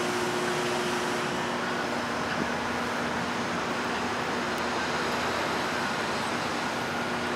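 Steady background noise of city traffic, with a faint low hum running under it.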